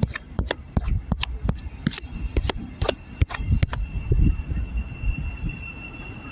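Train at a station platform: a quick irregular run of sharp clicks and knocks for the first few seconds, then a steady high whine, over a low rumble of wind.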